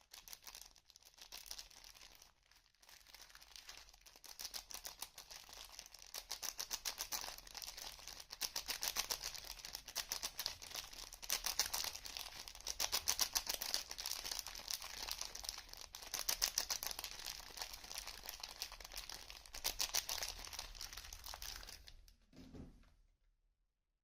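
Soap packaging being unwrapped by hand: the wrapper crinkles and tears in quick, dense rustles. It grows louder over the first ten seconds and stops about two seconds before the end.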